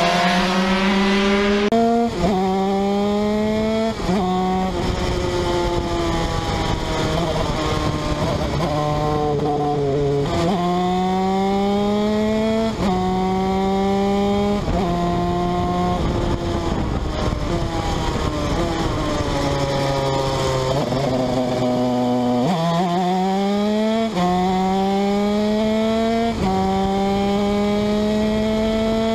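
TM 125cc two-stroke shifter kart engine at racing speed, heard onboard. Its pitch climbs and drops sharply at each gear change, falls away for several seconds from about 17 s in, then climbs hard again from about 22 s.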